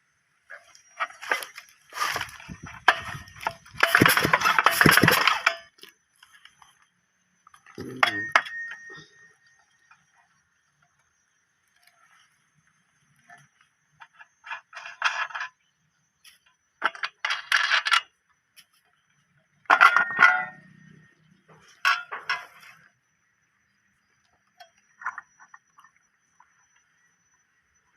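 Metal parts clinking and rattling as they are handled, in scattered short bursts with pauses between.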